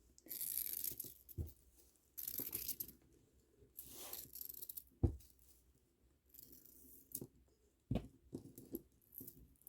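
Hands working string through plastic beads: several short scratchy rustles in the first half, then two soft knocks, about five and eight seconds in.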